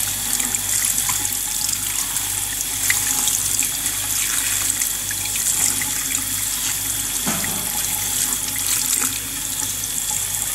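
Tap water running steadily into a sink, splashing over an iceberg lettuce leaf being rinsed by hand.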